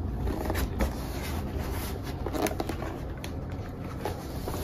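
Irregular rustling with small clicks and light knocks, the sound of things being handled, over a steady low hum.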